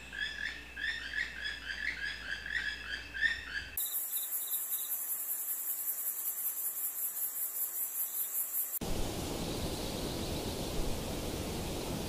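A songbird sings a quick series of short repeated chirping notes, about three a second. The sound then cuts abruptly to a very high, pulsing insect trill like a cricket, and about five seconds later cuts again to a steady outdoor hiss like wind or distant running water.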